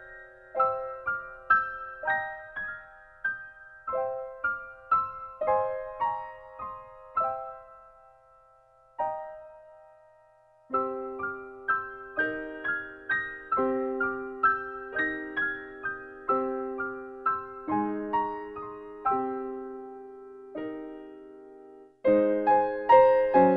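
Background music of gentle keyboard notes, each dying away after it is struck. The tune fades out about eight seconds in, starts again a few seconds later with lower notes added, and grows louder near the end.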